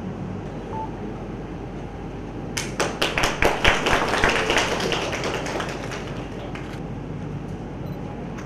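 Applause from a small seated group, breaking out about two and a half seconds in, loudest for a couple of seconds and then thinning out. A low steady room hum runs beneath it.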